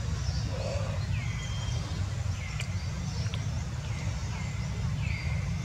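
A bird calling over and over, each call a short note that slides down and levels off, about once a second. Under it there is a steady low rumble.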